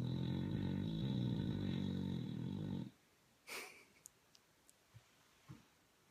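Bulldog snoring: one long, low, rattling snore that stops abruptly about three seconds in, followed by a short noisy breath and a few faint clicks.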